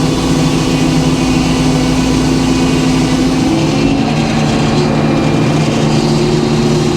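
Sawmill engine running steadily, its pitch stepping up a little about three and a half seconds in.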